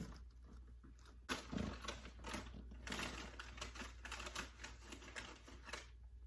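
A packet of crab-flavoured snacks being handled: irregular light crackles and clicks of the wrapper as the snacks are taken out.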